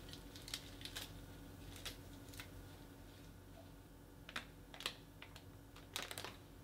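Light, separate clicks and rustles from handling food: salad leaves dropped onto a plate, then a plastic cheese package crinkling in the hand, with short clusters of crinkles about four and a half and six seconds in. A faint steady hum lies underneath.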